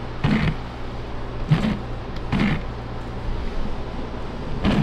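Steady low drone of a car in motion heard from inside the cabin. Short sounds break through it at irregular gaps of one to two seconds, and part of the drone drops out about three and a half seconds in.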